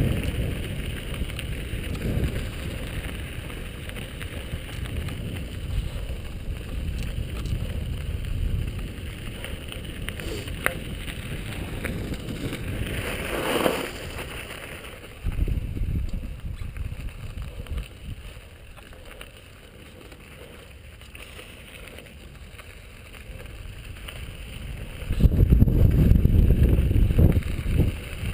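Wind rushing over a helmet camera's microphone and mountain bike tyres rolling over a gravel dirt road on a fast descent. The rush dies down for several seconds past the middle, then gets loud again near the end.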